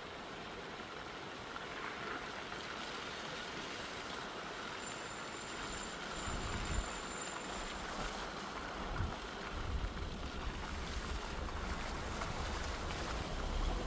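Steady outdoor hiss, with wind buffeting the microphone in low rumbling gusts from about halfway through.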